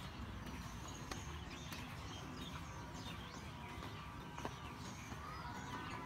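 Several birds chirping and calling in short repeated notes, with the crunch of footsteps on a dirt path and a steady low rumble beneath.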